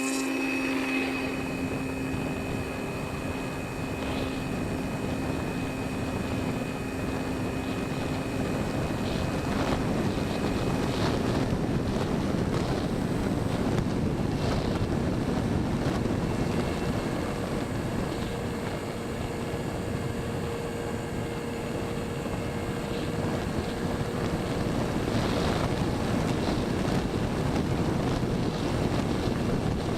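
The electric motor and propeller of an E-Flite Apprentice STS trainer plane spinning up to a steady whine for takeoff, heard from a camera under its wing. Heavy wind rushes over the microphone, and after about ten seconds the whine sinks into the wind noise as the plane flies on.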